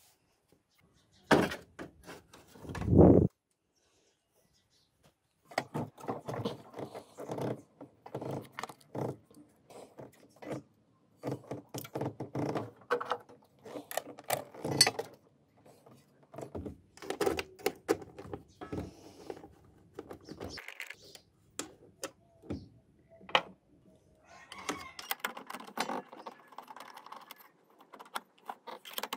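Hand work on the front end of a VW T4 van: plastic trim and parts clicking, knocking and rattling in short bursts, with two loud thumps in the first few seconds.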